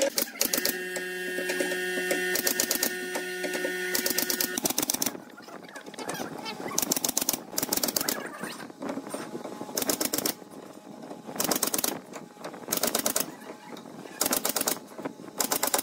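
Pneumatic coil nailer firing nails into pine pallet boards, about ten sharp shots spaced irregularly a second or two apart. A steady hum runs under the first four seconds or so.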